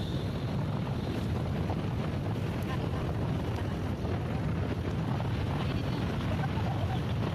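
Wind rushing over the microphone on a moving motorcycle, a steady low rumble of wind, engine and road noise.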